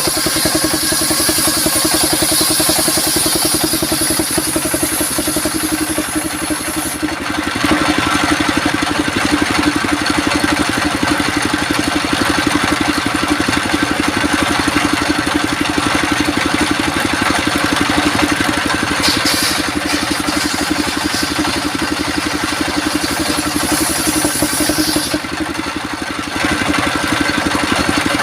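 Engine of a small wood-cutting sawmill running steadily, with a higher hiss in the first seven seconds and again briefly near the end.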